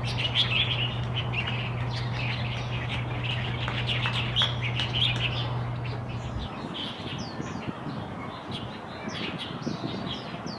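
Many birds chirping and calling, short overlapping chirps and quick rising whistles. A steady low hum runs under them for the first six and a half seconds, then cuts off suddenly.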